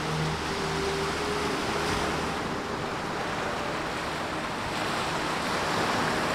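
Small waves breaking and washing up on a sandy beach: a steady rush of surf.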